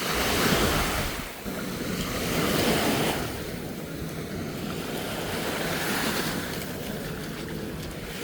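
Ocean surf washing up on a sandy beach, swelling louder twice in the first few seconds and then settling to a steady wash, with wind buffeting the microphone.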